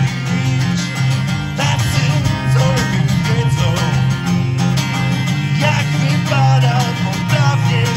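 Two acoustic guitars strummed together, with a man singing, amplified through a PA.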